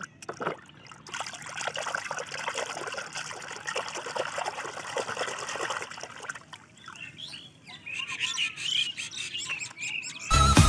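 Water splashing and trickling, as if hands are sloshing it in a tub, for the first six seconds or so. A run of high, bird-like chirps follows.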